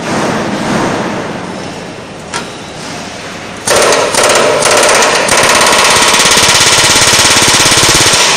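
Pneumatic riveting hammer driving a red-hot steel rivet into a railway bogie frame. A loud, very fast hammering starts about three and a half seconds in, stops briefly a few times, then runs on steadily and cuts off near the end. Before it there is only quieter background noise.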